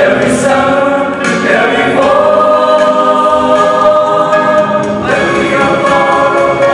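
Male vocal group singing in close harmony without words, holding one long chord through the middle and moving to a new chord about five seconds in.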